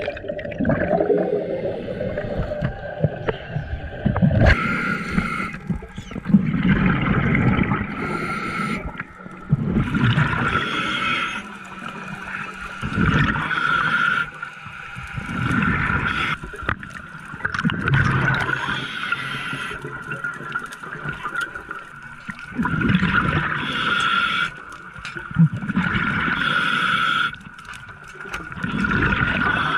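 Scuba diver breathing through a regulator underwater, heard from close by: a hissing inhale with a faint whistle alternates with a low bubbling exhale, in a steady cycle every few seconds.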